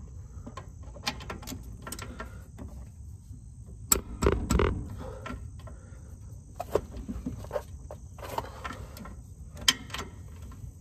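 Socket ratchet turning bolts loose on a truck's rear axle brackets: scattered metal clicks and knocks, with a louder clatter about four seconds in.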